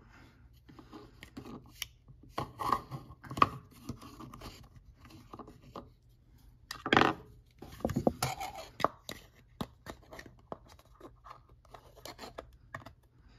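Handling of a plastic digital caliper and a clear plastic cup: scattered clicks, taps and scrapes as the caliper's jaws are slid and set against the cup's rim, with a louder handling noise about seven seconds in.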